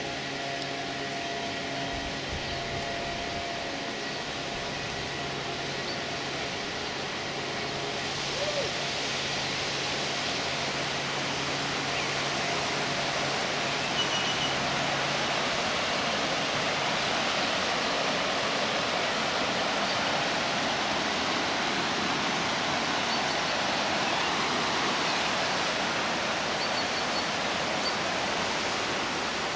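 Steady rushing of a river over rapids, a continuous even hiss that grows a little louder partway through. A faint steady hum lies under it for about the first half, then fades out.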